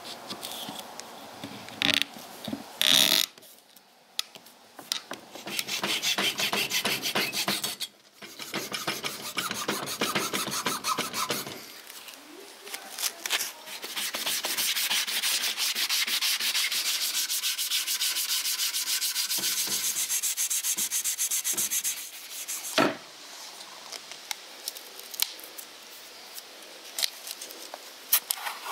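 Wooden cleaver handle being hand-sanded with quick back-and-forth strokes, a dry scratchy rubbing in runs of a few seconds, the longest about eight seconds. A few sharp knocks and handling clicks fall between the runs.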